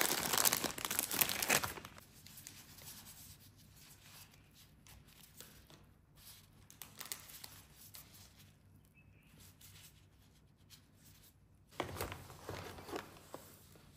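Foil-lined plastic pastry wrapper crinkling loudly as it is pulled open, then faint soft tearing as a jam-filled bun is pulled apart by gloved hands. Near the end a louder burst of rustling handling noise.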